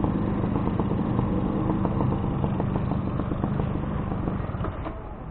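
Suzuki RC100 Bravo's small single-cylinder two-stroke engine idling steadily, then stopping about four and a half seconds in.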